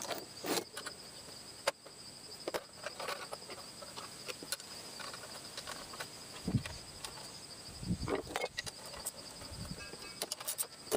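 Scattered clicks, clinks and a few low knocks, like small metal parts being handled, over a steady high pulsing trill like a cricket's.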